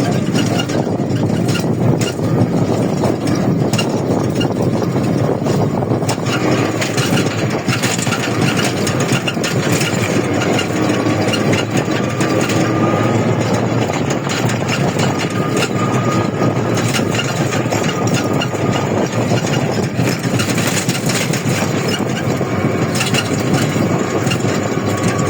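Steady running noise of a moving vehicle, even and continuous, with many small clicks and rattles through it.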